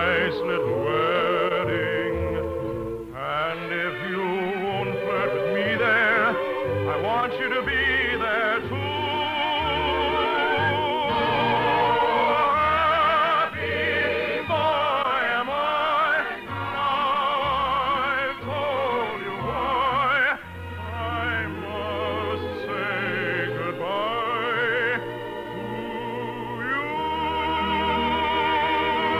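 Operatic singing with strong vibrato over an orchestra, a sung number from an operetta.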